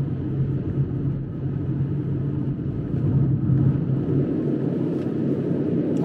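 Car driving along a road, heard from inside the cabin: a steady low hum of engine and tyre noise.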